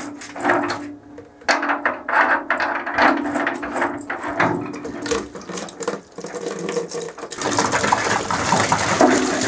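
Metal clicks and scrapes as the old sacrificial anode is turned out of the threaded port of a Buderus Logalux S160 hot-water tank by hand. Then, from about seven and a half seconds in, water rushes out of the opening as the anode rod is pulled free.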